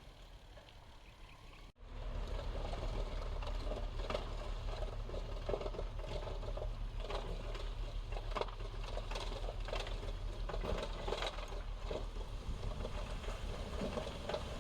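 Heavy diesel earthmoving machinery running with a steady low drone, while loose gravel crackles, scrapes and tumbles as it is pushed or dumped. The sound begins about two seconds in, after a brief quieter stretch.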